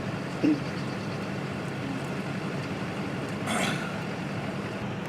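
A steady low engine-like hum, with a brief hiss about three and a half seconds in.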